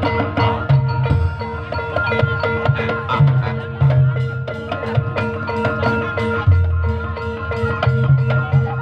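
Live ebeg accompaniment music: tuned mallet percussion with held ringing notes over a steady beat of low drum strokes.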